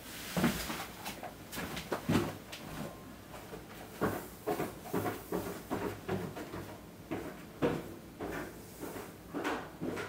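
A string of irregular knocks and clunks, roughly two a second.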